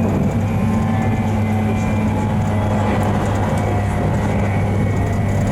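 JR 719 series electric train running, its thyristor-controlled commutator traction motors and gearing giving a steady, loud hum with a low drone and a second tone above it.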